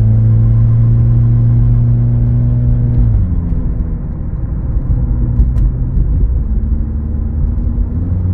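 Subaru Outback's boxer engine pulling away under light throttle: a steady engine note that rises slightly, drops in pitch about three seconds in as the transmission shifts up, then climbs again and steps down once more near the end.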